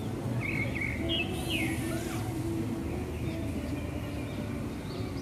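Birds chirping in short whistled calls, most of them in the first two seconds, over a steady low hum of city traffic.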